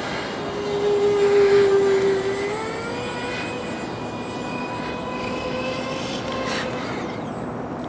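The twin electric ducted fans of a radio-controlled A-10 Warthog jet whine overhead as the model is caught in a death spiral. The whine is loudest for the first couple of seconds, then its pitch steps up slightly and holds steady, a little quieter.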